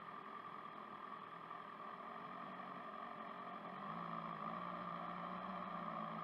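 Steady, muffled engine and wind noise from a BMW S1000RR's inline-four riding at low revs in slow traffic. A steady low hum joins about four seconds in.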